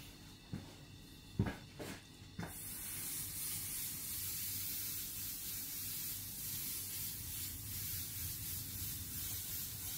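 A few light knocks, then, about two and a half seconds in, a compressed-air paint sprayer starts a steady hiss as paint is sprayed through a logo stencil onto a motorcycle fuel tank.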